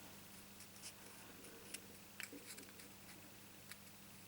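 Near silence: room tone with a faint steady hum and a few soft, scattered clicks and taps.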